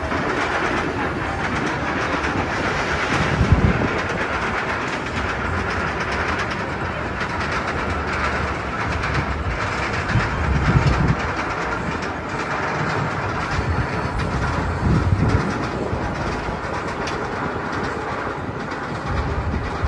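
Steady rumbling, clattering mechanical noise of amusement-park rides running, with three louder low rumbles.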